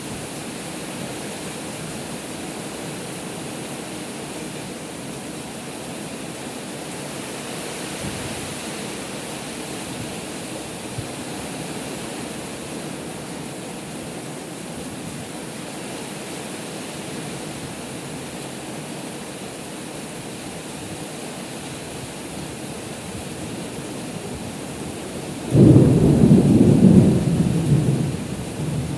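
Heavy rain pouring steadily, with a sudden loud clap of thunder near the end that rumbles for about three seconds.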